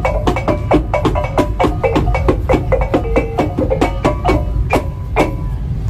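Background music: a fast percussive tune of short struck notes, about four or five a second, over a steady low bass, the notes stopping shortly before the end.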